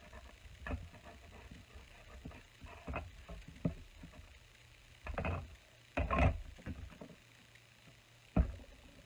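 Clear acrylic cutting plates of a manual die-cutting machine being handled, lifted and set back against the machine's platform, giving a scattering of knocks and scrapes. The loudest is about six seconds in and a sharp knock comes near the end.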